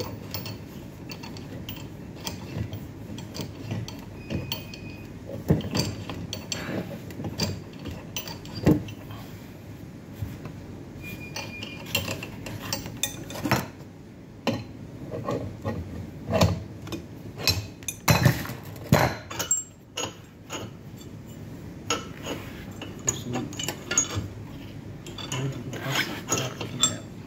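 Irregular clicks, knocks and rubbing from hand work on the metal fittings and plastic tubing of a Melag 31B autoclave, with now and then the clink of a metal tool.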